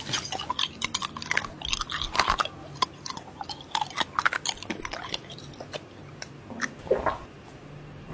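A person biting and chewing crunchy food close to the microphone: many irregular crisp crunches and smacks.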